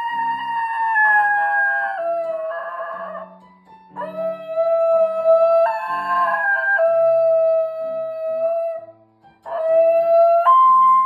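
A basenji howls along to piano in long, held notes. The pitch slides down slightly, then steps up near the end. There are three howls, with short breaks about three and a half and nine seconds in. Short piano notes play underneath.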